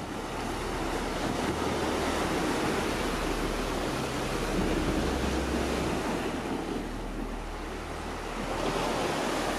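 Sea surf breaking and washing over a rocky shoreline, a steady rush that swells and eases, with a low rumble of wind on the microphone.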